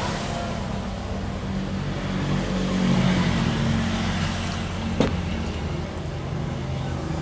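Steady low mechanical hum of a running motor, with one sharp click about five seconds in.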